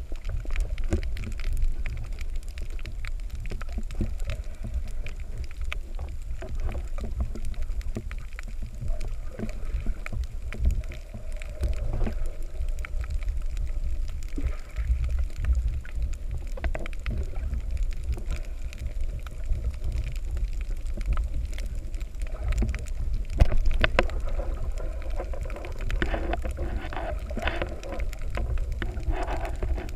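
Muffled underwater sound picked up by a camera held underwater: a steady low rumble of water moving around the camera, with scattered short clicks and crackles over it.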